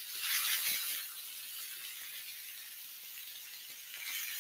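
Chicken kebabs sizzling on a hot griddle pan as they are turned with tongs. The sizzle swells in the first second, then settles into a steady hiss and swells again near the end.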